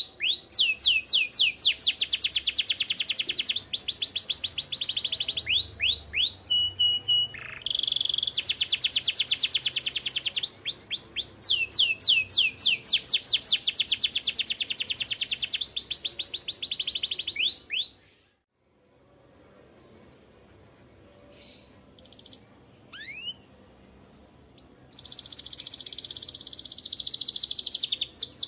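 Domestic canary singing in long, rapid rolls of quickly repeated notes, run after run for the first two-thirds. After a short break the song turns sparse with a few single chirps, then picks up again near the end, over a thin steady high tone.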